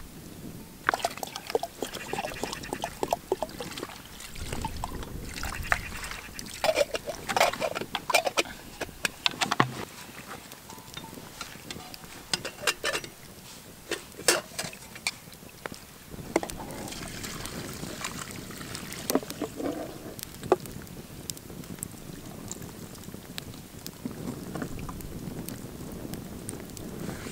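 Camp cooking sounds: hot water poured from a metal kettle into a pot, with repeated clinks and knocks of a spoon and metal cookware.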